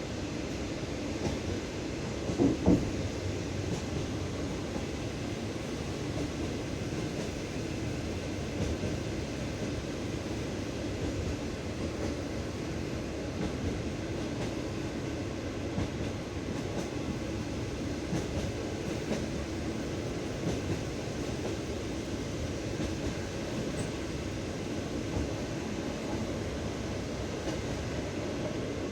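Train wheels clattering over the rail joints of jointed track under a passenger carriage, over a steady rolling rumble. Two sharper, louder knocks come about two and a half seconds in.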